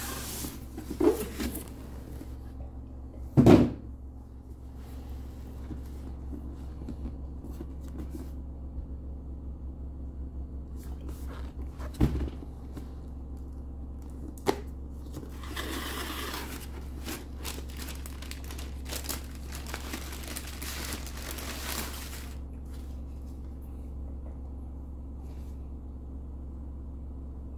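Cardboard packaging being unboxed by hand: a few knocks and thumps as a shipping box and a cardboard shoe box are opened and handled, then several seconds of paper and packaging rustling and crinkling as the sneaker is taken out.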